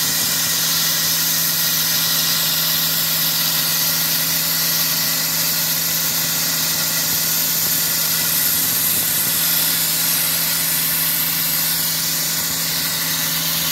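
Sandblasting log siding: a steady, loud hiss of air and abrasive from the blast nozzle, over an engine running steadily at constant speed.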